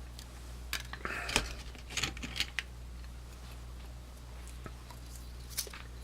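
Small aluminium-scaled Swiss Army pocketknives handled and set down: a few light metallic clicks and short scrapes in the first couple of seconds, then one more click near the end.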